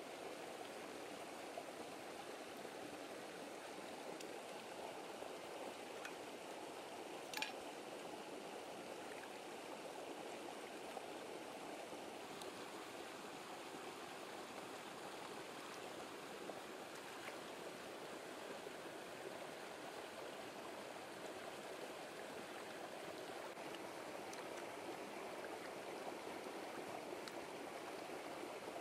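Shallow rocky stream flowing over small rapids, a steady rush of water, with a single sharp click about seven seconds in.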